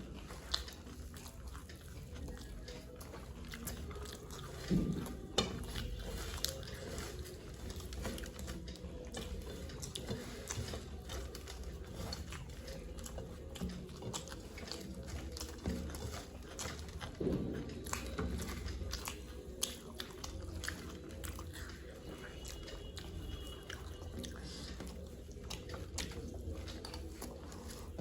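Close-up chewing and crunching of puffed rice mixed with singara, with many small crisp crackles and a few louder bites about five and seventeen seconds in.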